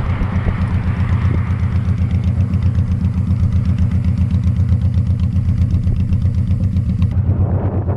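Honda Shadow Spirit 1100's V-twin engine idling steadily with a regular low, pulsing beat.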